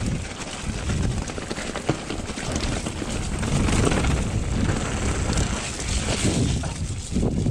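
Wind buffeting a bike-mounted camera's microphone over the rumble and rattle of a mountain bike riding a rough, wet trail, with many small knocks. The noise drops away sharply at the very end.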